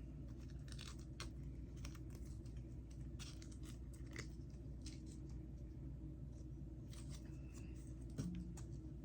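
Faint, scattered small clicks and scratches of a plastic jelly-straw wrapper being cut with a knife and handled.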